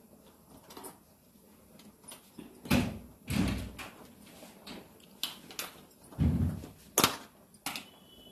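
Kitchen handling noises: scattered knocks and clunks of things being picked up and set down while butter is fetched. The heaviest dull clunks come about three seconds in and again near six seconds, with sharp clicks in between.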